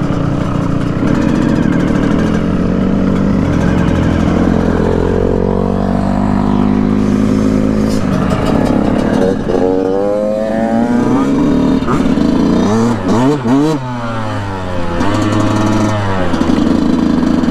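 Yamaha YZ125 125cc two-stroke dirt bike engine running under way on a trail, revving up and down in a series of quick rising and falling sweeps past the middle, then settling back to a steady note.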